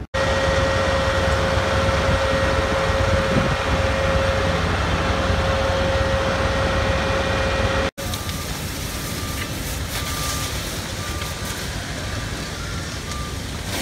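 A fire engine running in heavy wildfire smoke: a loud steady rush with a held tone. After a cut, steady noise continues with a short electronic beep repeating about every ¾ second, from roughly a second after the cut.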